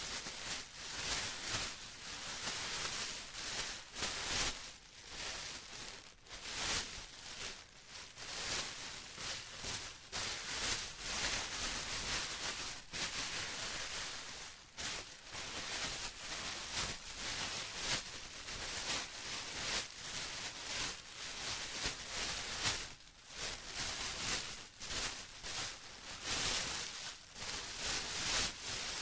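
Plastic being rustled and crinkled by hand, a continuous irregular crackling that swells and eases unevenly.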